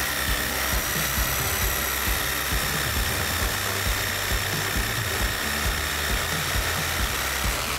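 NRT Pro JV65DC 20-volt cordless jigsaw, with a Bosch blade in pendulum mode, cutting through hard ulin (ironwood) decking: a steady motor whine over the buzz of the blade. It cuts off suddenly at the end as the cut finishes.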